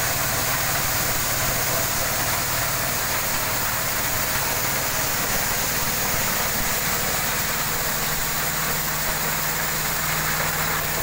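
Motorised corn sheller running steadily, driven by its small stationary engine, the threshing drum rattling as shelled corn kernels pour out of the chute in a constant hiss.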